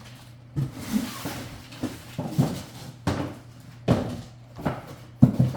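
Rummaging through a box of mower parts: an irregular series of knocks and rustling as things are moved about, roughly one every half to one second.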